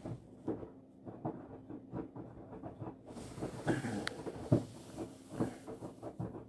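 Washing machine running, giving irregular soft knocks and thumps about one or two a second.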